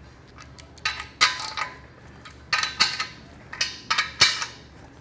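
Sharp metal clinks, about nine at uneven spacing, some with a short ring, as a hand wrench works the bolts of the parking-brake assembly on the back of the transmission.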